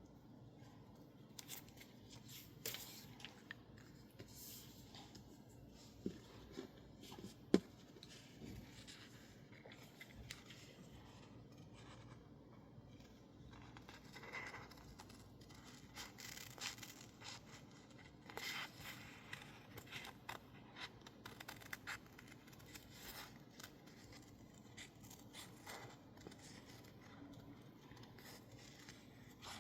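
Scissors cutting sticker label paper: quiet, irregular snips with paper rustling, and a few sharper clicks a few seconds in.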